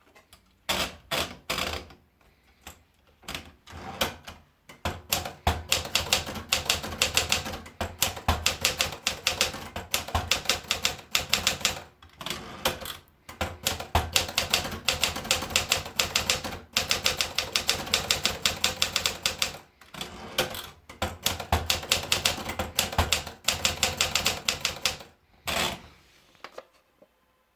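Olympia Traveller portable manual typewriter being typed on: a few scattered keystrokes at first, then fast runs of key strikes broken by short pauses, stopping shortly before the end.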